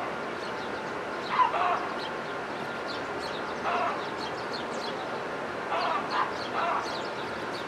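Many small birds chirping steadily in short high notes, with a louder, lower animal call four times, the first about a second and a half in the loudest.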